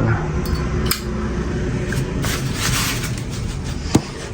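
Steady low background rumble with a faint hum. Over it come a sharp click about a second in, a brief rustle, and another click near the end.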